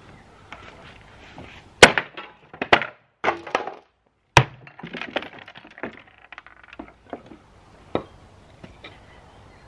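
Wooden cabinet of a 1960s Magnavox console radio-record player being kicked and struck apart: sharp cracks and knocks of panels splitting and breaking loose, the loudest about two seconds in, then smaller crackling and clattering, and another strike near the end.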